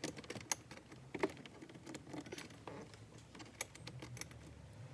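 Irregular small clicks, taps and rattles of plastic trim and screws being handled while a car's glove box panel is fitted back together, with a few sharper knocks.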